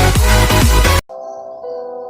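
Loud electronic dance music with a heavy thumping beat, which cuts off suddenly about a second in and gives way to softer music of held, ringing tones.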